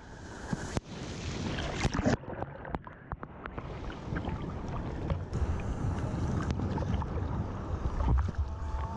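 Surf water sloshing and splashing around a camera at water level, with breaking waves and wind on the microphone. Sharp splashes come about one and two seconds in, then the sound briefly goes dull before the rush of whitewater picks back up.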